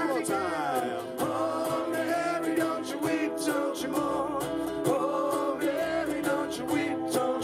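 Live acoustic band music: ukuleles strummed over a cajon beat, with a sliding melody line on top.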